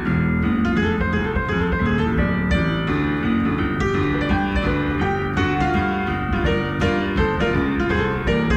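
Jazz piano music, a steady flow of notes and chords.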